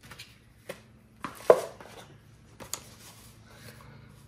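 Small cardboard boxes being handled and set down on a stone countertop: a few light knocks and scrapes, the loudest about a second and a half in.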